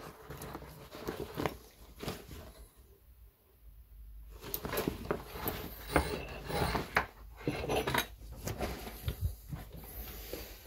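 Handling noise from an OM-14 gas mask kit: the canvas bag rustles, and its hose, filter canister and fittings knock and clatter against a wooden tabletop. The sounds come in irregular bursts, with a short lull about a third of the way in.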